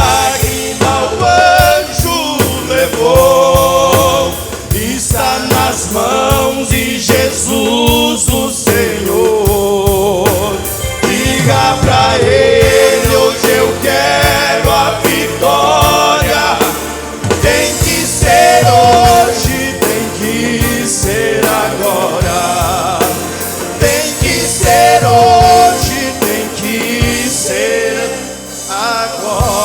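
Gospel music with singing voices over a band with a steady beat.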